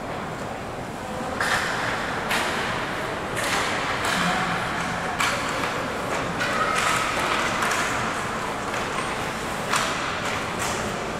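Ice hockey play: skate blades scraping the ice and sticks hitting the puck, a series of sharp scrapes and clacks that ring out in the large rink.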